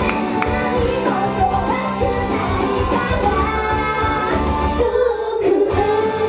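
Japanese idol pop song performed live: a singer's voice carrying the melody over loud, continuous backing music.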